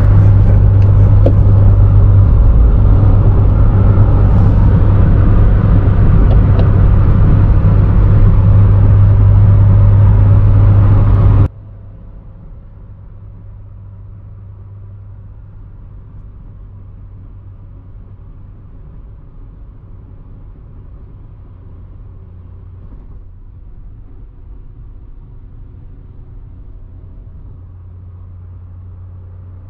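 Steady in-cabin driving noise of a C6 Corvette cruising at highway speed: engine and road drone with a strong low hum, very loud at first. Well over a third of the way in it cuts abruptly to a much quieter, steady drone.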